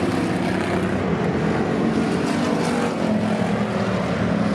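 Pure stock dirt-track race cars running at speed around the oval, several engines droning together in a steady, overlapping drone.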